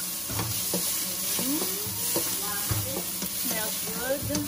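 Chopped onions and garlic sizzling in a hot wok, with a spatula stirring them and knocking against the pan.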